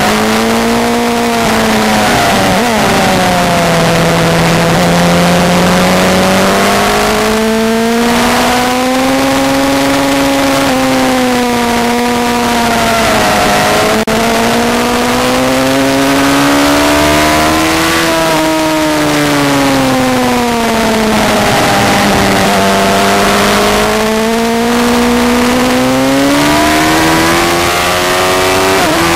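Honda CBR929RR Fireblade's inline-four engine at race pace on track, its revs swelling and falling through the corners and climbing steadily over the last few seconds as the bike accelerates hard. Heard from a bike-mounted camera, with wind rushing past.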